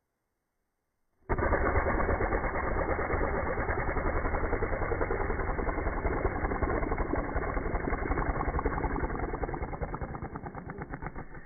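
A lip raspberry or lip buzz slowed down by slow-motion playback, heard as a loud, rapidly pulsing, engine-like buzz. It starts suddenly about a second in, and near the end its pulses grow slower and more distinct.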